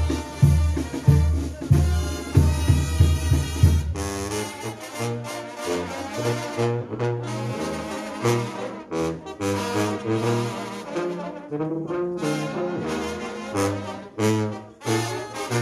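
Mexican banda playing, with trumpets and trombones carrying the tune over a low bass line. A pounding drum beat runs for the first four seconds or so, then drops out abruptly.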